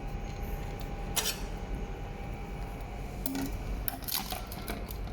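Metallic clinks and taps from taking apart a short straight-pipe motorcycle exhaust and its removable silencer insert: a knock about a second in, then a cluster of clinks between three and four seconds in, over a low steady background noise.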